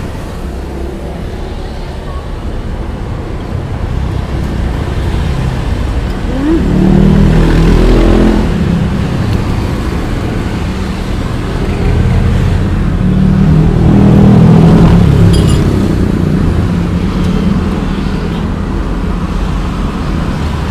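Road traffic passing close by: a steady rumble, with two motor vehicles going past, their engines swelling to the loudest point about a third of the way in and again just past the middle.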